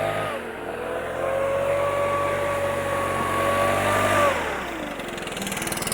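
An engine speeds up, runs at a steady high pitch for about four seconds, then winds down.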